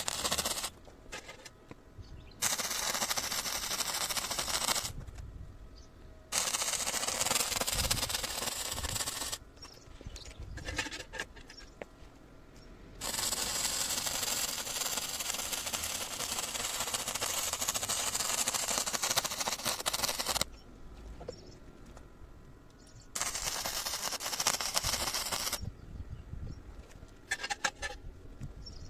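A 100V semi-automatic (MIG) welder's arc crackling steadily on steel in runs of a few seconds each, broken by short pauses as each weld is stopped and restarted.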